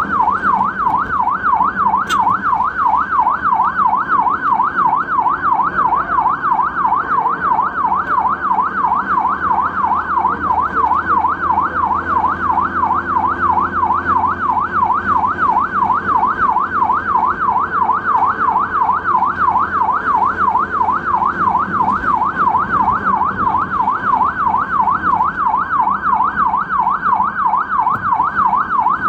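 Ambulance electronic siren in a fast, even warble, sweeping up and down without a break. A low engine and road rumble runs underneath.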